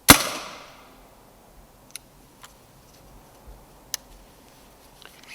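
A single shot from a silenced .22 Brocock Ranger XR pre-charged air rifle: one sharp crack right at the start that dies away within about half a second. A few faint clicks follow.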